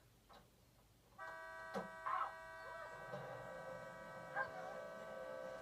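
Film score: a steady synthesised chord of several held notes comes in suddenly about a second in and sustains, with a few faint knocks and small sounds over it.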